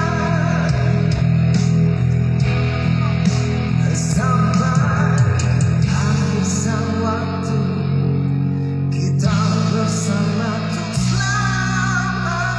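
Amplified music with guitar accompaniment and a man singing into a microphone over it.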